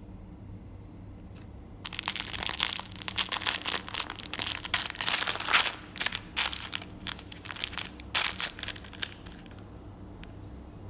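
Plastic packet of pearl barley crinkling as it is handled and turned over, a run of loud crackling bursts that starts about two seconds in and stops shortly before the end.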